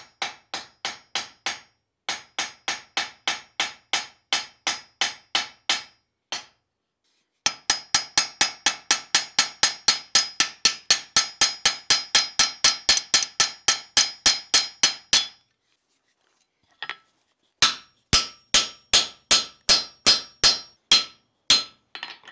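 Small hammer peening a hot rivet into the pivot of forged steel tongs on the anvil: quick, ringing metal-on-metal blows about four to five a second, in runs with short pauses. Near the end the blows slow to about two a second.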